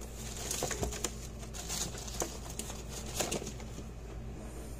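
Someone rummaging through small parts while searching for a replacement capacitor: scattered light clicks and rustles at irregular intervals, over a steady low hum.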